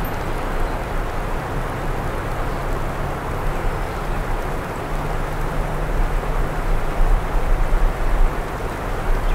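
Steady outdoor ambience during a snowfall: an even hiss with a low rumble beneath it, no distinct events.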